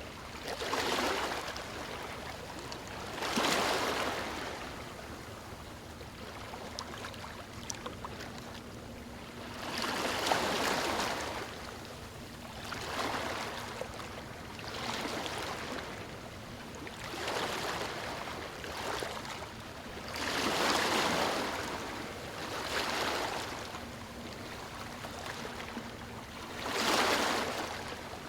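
Waves breaking and washing over a stony shore. About ten surges of rushing water rise and fall back every two to three seconds over a steady hiss.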